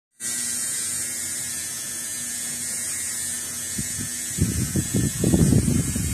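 Electric tattoo machine buzzing steadily as its needle works ink into skin. Louder, irregular low sounds join in about four seconds in.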